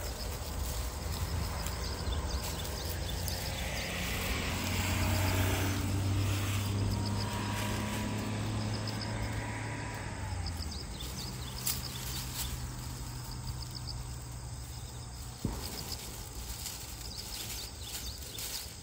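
Outdoor ambience with insects chirping in quick repeated trills over a low steady hum of a distant motor, which is strongest in the middle and then eases off. There is soft rustling throughout, with a couple of sharp clicks in the second half.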